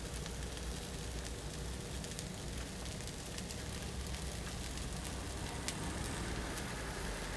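A hot bungeoppang (fish-shaped pastry) griddle giving a steady hiss with scattered faint crackles as batter is poured onto it.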